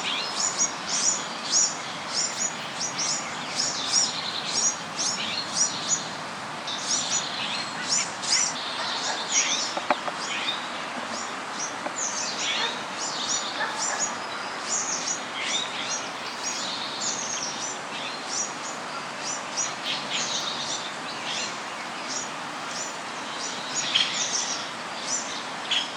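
Small birds chirping: many quick, high-pitched chirps in rapid, overlapping runs over a steady background hiss.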